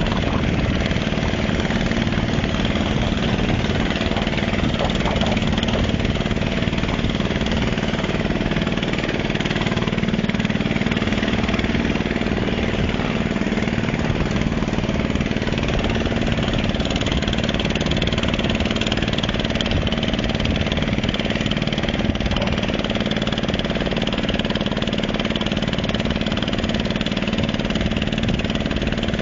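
Boat engine running steadily as the boat moves across the water.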